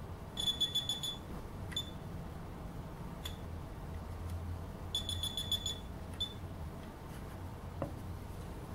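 Easitag BSV-100 handheld RF EAS tag and label verifier beeping: a rapid series of high-pitched beeps about half a second in and again about five seconds in, with single short beeps between. The beeping signals that it has detected an active RF EAS label in the package.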